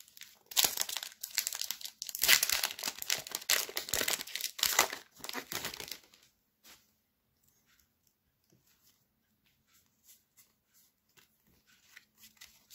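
Pokémon booster pack's foil wrapper being torn open and crinkled for about five seconds. Then a few faint ticks as the stack of cards is slid out and handled.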